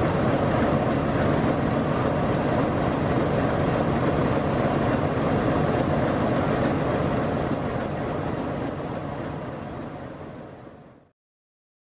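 YDM-4 diesel locomotive's engine idling steadily. It fades away over the last few seconds and then cuts to silence.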